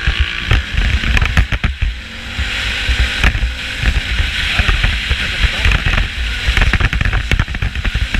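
A loose GoPro in its snap-in mount rattling and clacking in quick, irregular knocks as the vehicle rides over a rough, potholed road, over steady wind noise and a low engine rumble.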